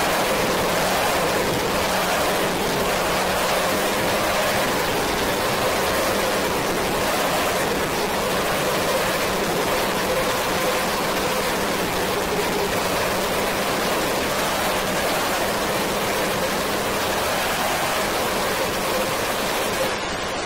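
A steady wash of rushing, rain-like noise with faint held tones beneath it, as in an ambient noise track; near the end the highs drop away and it begins to fade.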